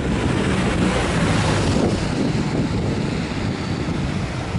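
Steady low vehicle rumble with wind buffeting the microphone.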